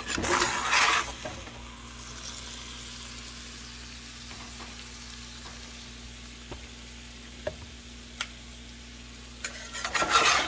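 A metal spoon scraping and scooping food in a hot cast iron skillet, in one loud burst in the first second and another near the end, with a few light clicks between. The hot food sizzles softly in the pan throughout.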